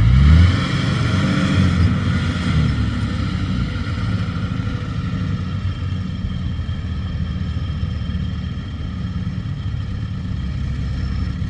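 Rice combine harvester's engine running; its revs rise in the first moment, then hold steady. A higher whine sounds over it for the first few seconds.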